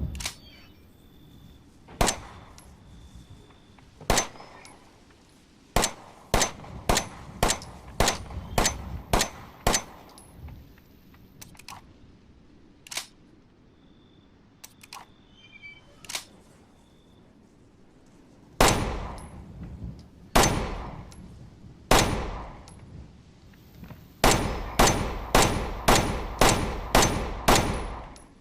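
Glock 17 pistol shots, sharp and ringing: two single shots, then a string of about eight fired roughly two a second. Three louder shots with long echoing tails follow, then another fast string of about eight.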